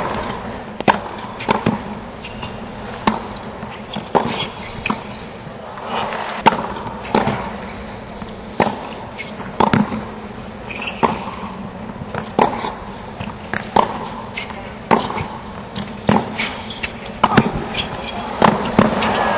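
Tennis ball being hit back and forth with rackets in a long baseline rally on a hard court: a sharp pop of racket on ball or ball on court about every second, over a low steady crowd background.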